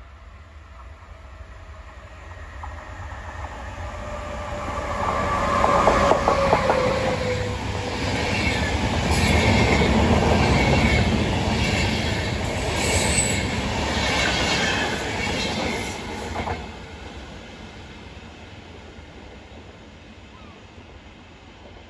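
A DSB class EB electric locomotive hauling a EuroCity train of DB Intercity coaches passes close by. It builds up with a whine falling in pitch as it nears, then the coach wheels clatter rhythmically over the rail joints, with a high squeal. About two-thirds of the way in, the noise drops off suddenly to a faint distant train rumble.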